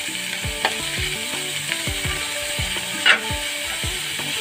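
Beef mince sizzling as it fries in a pot, stirred with a spoon, with a few sharp clinks and scrapes of the spoon on the pot, the loudest about three seconds in. Background music with a steady bass beat plays underneath.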